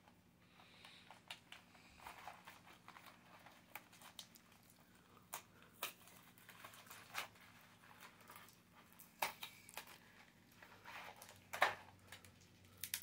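Faint crinkling and scattered light clicks of packaging handled by fingers as tape is picked off a small box, with a few sharper ticks near the end.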